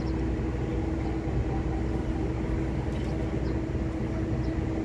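Steady low machinery hum with a constant droning tone at one fixed pitch, from the engines of the ship the recording is made on.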